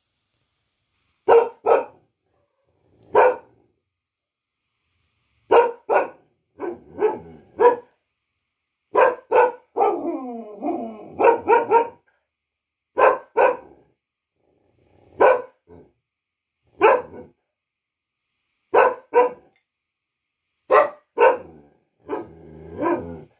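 Local-breed dog barking in short, sharp barks, often in pairs, with gaps of a second or two between; around ten seconds in a longer vocalisation falling in pitch runs among the barks.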